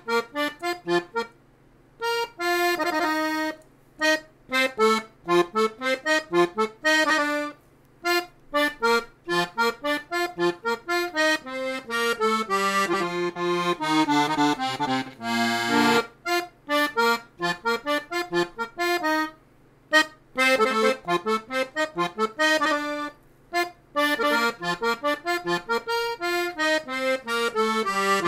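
Diatonic button accordion in F played solo: a quick melody of separate, detached notes in short phrases with brief pauses between them, and one held chord about fifteen seconds in.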